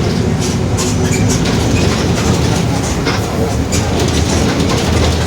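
Mercedes-Benz OF-1721 BlueTec 5 bus under way: a steady diesel engine and drivetrain rumble with the rear differential growling, and frequent clacks and rattles from the Marcopolo Torino S body.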